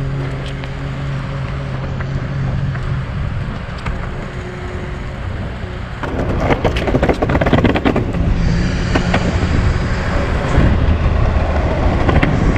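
Longboard wheels rolling over rough pavement: a rumble with many small clicks and knocks, louder from about six seconds in. A steady low hum fades out over the first few seconds.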